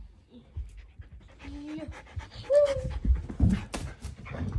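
Samoyed panting during play, with a few thumps and clicks about three seconds in.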